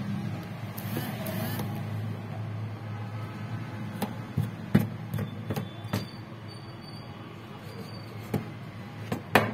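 Metal tweezers scraping and clicking against a phone's mid-frame as leftover display adhesive is picked off, in scattered sharp ticks with a scratchy patch about a second in, over a steady low hum.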